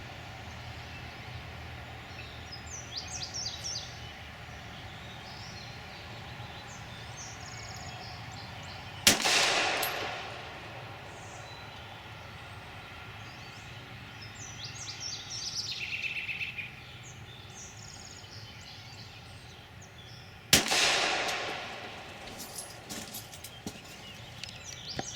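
Two shots from a Glock 26 9mm pistol, slow aimed fire about eleven seconds apart, each with a trailing echo. Birds chirp faintly between the shots.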